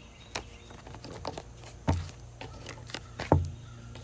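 A few light, separate taps and clicks, the sharpest a little under two seconds in and a little over three seconds in, over a low steady hum.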